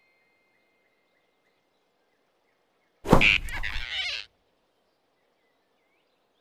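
A sudden grab sound effect about three seconds in: a sharp thump and a swish lasting about a second, with a short squeak from the flying squirrel as the rabbit's hand seizes it by the neck. Otherwise near silence.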